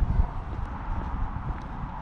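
Footsteps of a person walking on tarmac, with wind buffeting the microphone in an uneven low rumble.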